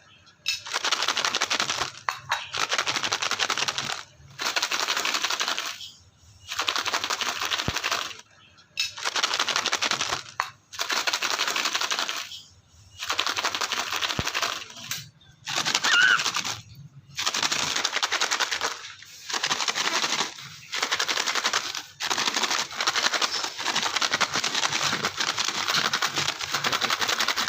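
Crinkling plastic wrapper of a packaged snack cake, crackling in repeated bursts of one to two seconds with short pauses between them.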